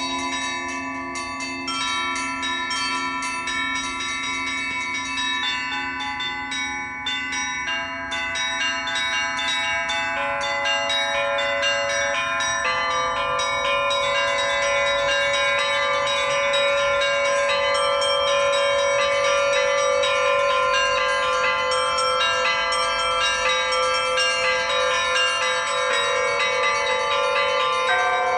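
A Russian Orthodox church bell peal on a set of LITEX foundry bells, rung by hand by one bell-ringer. Small bells are struck in quick, overlapping patterns over the long ringing of larger bells. The peal grows fuller and a little louder about ten seconds in.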